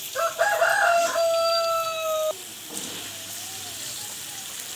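A rooster crowing once: a few short broken notes, then one long held note that stops abruptly a little over two seconds in.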